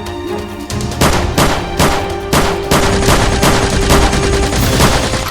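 Background music with a steady run of gunshot sound effects, about three shots a second, starting about a second in.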